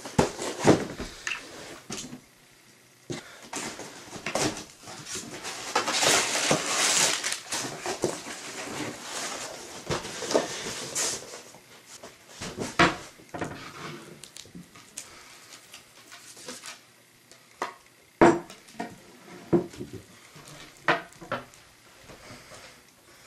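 Unboxing and handling a new skateboard deck: rustling of packaging in longer stretches, with scattered sharp knocks and clicks of hard objects being handled. The sharpest knock comes about eighteen seconds in.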